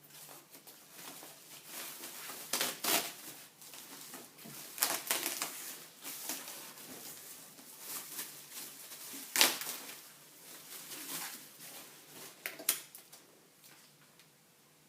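Packaging being handled while unboxing a TV: irregular rustling and sharp clicks, the loudest about nine and a half seconds in, dying down near the end.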